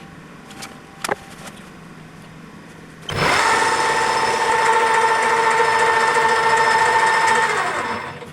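Metal lathe turning a shoulder on a small workpiece. It runs quietly with a single click about a second in. About three seconds in, a loud, steady, high ringing tone starts suddenly as the tool cuts, holds for about four seconds, and fades away near the end.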